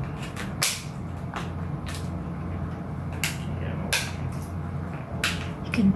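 Thin plastic clamshell berry container being peeled and pried open: sharp plastic crackles and snaps, about six spread over several seconds, over a steady low hum.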